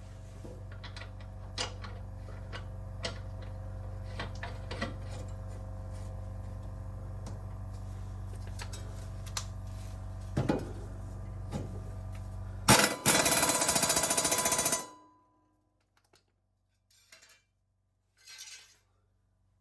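Impact wrench hammering on a mower blade bolt for about two seconds near the end, the loudest sound here. Before it, a steady low hum with scattered clicks and clanks of tools on metal.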